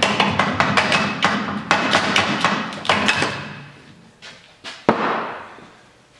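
Rapid, irregular clicking and knocking of parts being worked loose by hand on an ATV's front end around the radiator and hoses, easing off after about three and a half seconds. About five seconds in, there is a single sharp knock followed by a short fading rattle.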